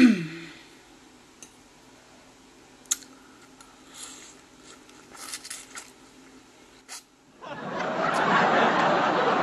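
Eating sounds: the fork clicking and soft mouth noises while noodles are slurped, opening with a short loud sound that drops quickly in pitch. From about seven and a half seconds in, a loud burst of crowd laughter takes over, a laugh-track sound effect.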